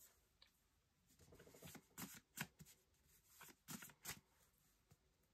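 Faint flicks and rustles of a stack of paper note cards being thumbed through by hand: a run of short, sharp strokes starting about a second in and stopping a little after four seconds.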